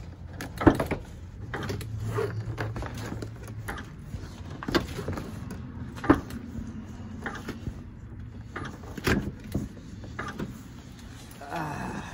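Irregular knocks, clicks and rubbing from a phone being handled and carried, its lens pressed against fabric, over a low steady hum.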